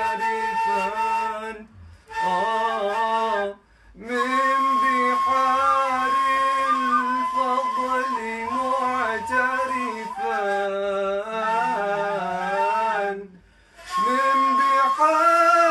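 A single voice singing an unaccompanied devotional qasida in long, ornamented phrases, with short pauses for breath about two, three and a half, and thirteen and a half seconds in.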